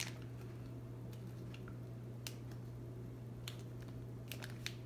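A few faint, scattered clicks and soft crinkles of plastic bag packaging being handled, over a steady low electrical hum.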